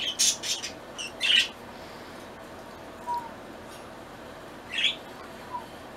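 Pet cockatiels giving short, high chirps: a quick run of calls in the first second and a half, then a single call about five seconds in.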